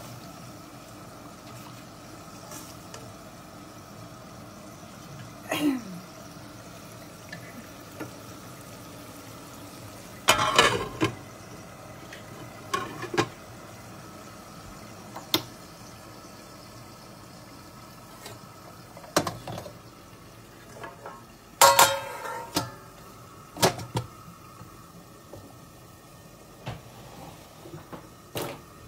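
Spice masala of onion, ginger-garlic and ground spices simmering in oil in a steel karahi, a low steady bubbling. It is broken by several sharp clinks and knocks of the spatula, glass lid and pans.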